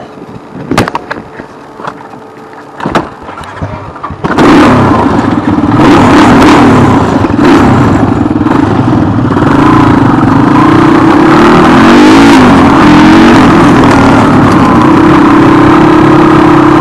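Honda 250cc dirt bike engine, heard close up from the handlebars. For the first four seconds it is quieter, with a few sharp knocks. Then it runs loud as the bike is ridden off, its pitch wavering up and down with the throttle.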